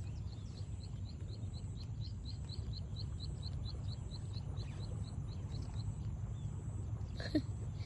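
A bird calling a steady run of short, high chirps, about four a second, that stops a little past halfway, over a low, steady outdoor rumble.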